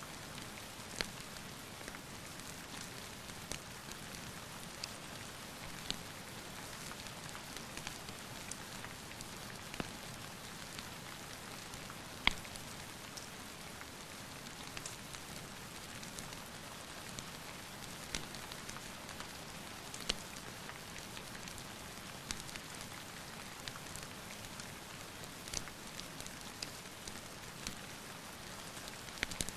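Steady rain hissing, with scattered sharp pops and crackles from a wood fire in a fireplace.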